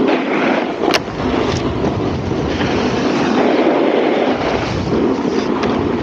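Snowboard running over packed snow: a steady scraping hiss of the board sliding on the snow, mixed with wind rushing over the microphone. A sharp click about a second in.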